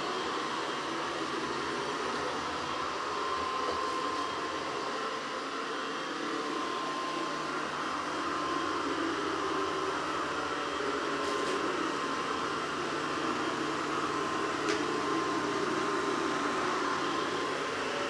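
SwitchBot K10+ Pro mini robot vacuum running on Standard suction: a steady fan whir with a thin, high, even whine, and a few faint ticks.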